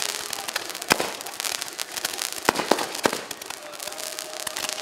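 Toy fireworks going off: a continuous crackle and hiss laced with sharp pops and cracks. The loudest crack comes about a second in, with more around two and a half to three seconds.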